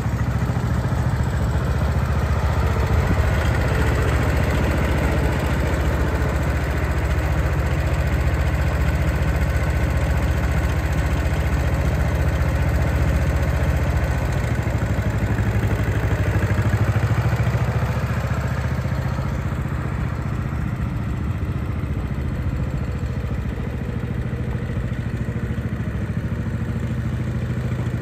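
1940 John Deere LA tractor's small two-cylinder engine running steadily while the tractor is driven slowly, a little quieter in the last third as it moves away.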